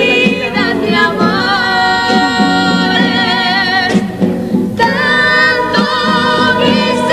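Carnival comparsa chorus of male and female voices singing together, holding long notes with vibrato; the singing breaks off briefly about four seconds in, then resumes.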